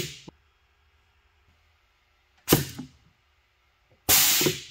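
Air-actuated drawbar of an HSK63F router spindle cycling: two sharp blasts of hissing air, each starting with a snap and dying away within about half a second, about a second and a half apart. The drawbar is clamping and unclamping the measuring tool to check that the clamp set repeats at its setting.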